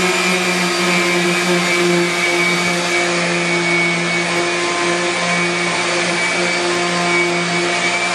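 Electric handheld sander with a dust-extraction hose attached, running steadily with an even motor hum and rushing air.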